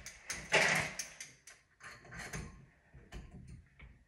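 Small metal handling sounds of an Allen key and set screw being worked into a Delta shower trim: a short scraping burst about half a second in, then scattered light clicks and taps.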